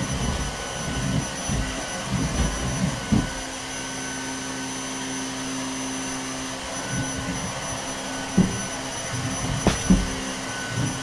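Vacuum cleaner running steadily, with occasional knocks and bumps, the sharpest a little after 8 seconds and near 10 seconds.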